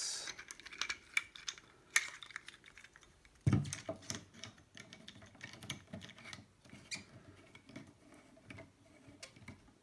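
Handling noise of a plastic-and-metal camera grip rig being fitted together by hand: scattered small clicks, taps and light scraping, with one louder knock about three and a half seconds in.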